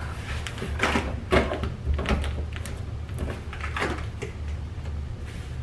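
Scissors cutting and scraping along the packing tape on top of a large cardboard shipping box, a handful of short scratchy rasps with bumps of hands on the cardboard.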